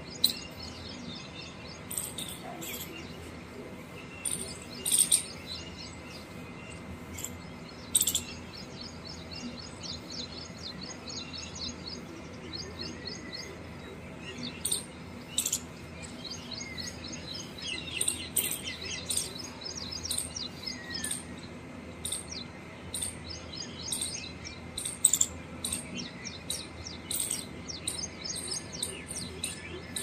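Small birds chirping and trilling: many short, high chirps and quick trills, busier in the second half, over a faint steady hiss.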